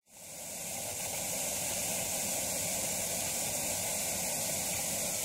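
Television static sound effect: a steady hiss of white noise that swells in over the first half second.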